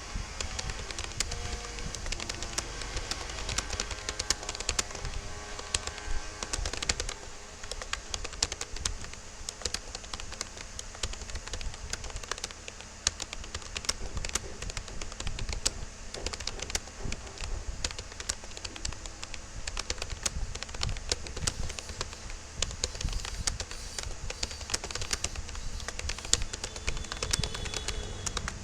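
Fast touch-typing on a Rapoo computer keyboard: a rapid, irregular stream of key clicks that keeps going throughout. Faint music plays under the clicks for about the first seven seconds.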